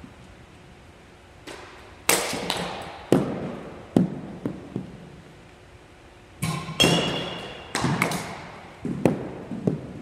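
Baseball bat hitting tossed balls in an indoor batting cage: a run of sharp knocks and thuds, several with a ringing echo off the gym walls, as balls are struck and hit the net and floor.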